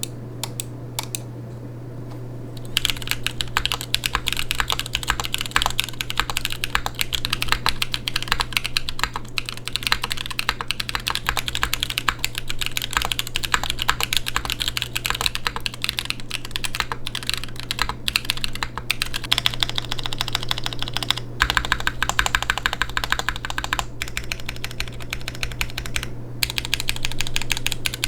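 Fast typing on a custom mechanical keyboard fitted with KNCKeys Chocolate Crinkle Cookie tactile switches, in a carbon fiber plate with GMK keycaps: a steady stream of key clacks with the switches' tactile bottom-out, which the reviewer finds harsher and fuller than the ube switches. The typing is lighter for the first few seconds, then becomes continuous, with a brief pause near the end. A steady low hum sits underneath.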